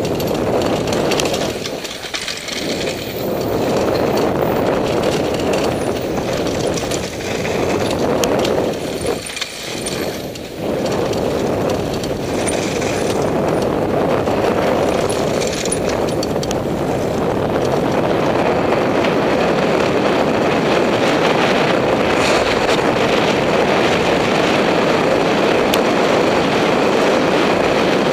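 Mountain bike riding fast downhill on a dirt and gravel trail: a steady rush of wind on the microphone mixed with tyre noise and short rattles from the bike. The rush drops off briefly twice in the first ten seconds, then stays even.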